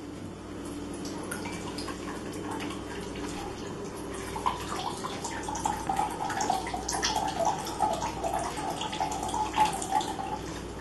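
Soy sauce being poured into a measuring cup: a steady liquid pour that grows more uneven from about four seconds in.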